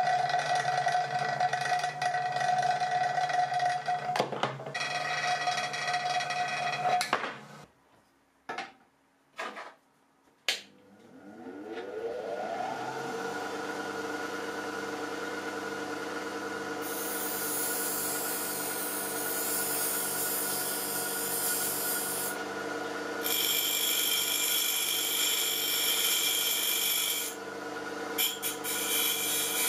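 An Einhell bench grinder running, then, after a short silent gap with a few clicks, a second bench grinder that has been corrected for vibration spinning up with a rising whine and settling into a steady hum. From about halfway on, a steel blade is ground against its abrasive wheel in three bouts of hissing grinding.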